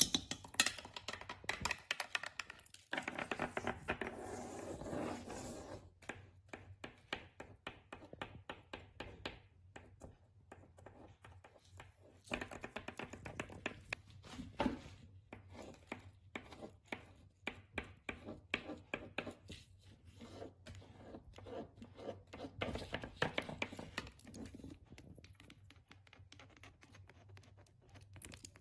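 Long fingernails and metal rings tapping and scratching on household objects, a glass kettle among them: quick clusters of clicks and taps, with a stretch of scratchy rubbing a few seconds in.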